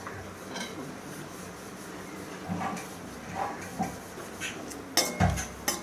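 A spatula stirring vegetables in a kadai, with soft clinks against the pan and then a few sharp metal clanks near the end, which are the loudest sounds.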